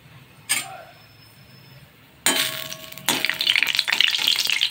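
Whole spices (cloves, cinnamon, bay leaf) crackling and sizzling in hot coconut oil in a metal kadai, with a metal spatula scraping and clinking in the pan. The crackle starts about two seconds in and is loud and dense: the tempering spluttering well.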